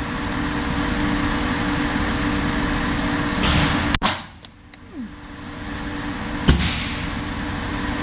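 Pistol shots on an indoor range: a sharp report about halfway through, after which the recording level drops out briefly, and another about two and a half seconds later, over a steady background roar.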